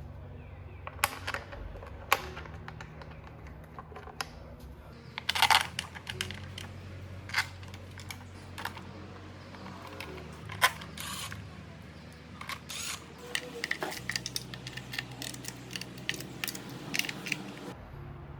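Scattered sharp clicks and metallic knocks of hand tools being worked on a car engine, about two dozen spread irregularly, with a louder cluster about five seconds in. Background music plays underneath throughout.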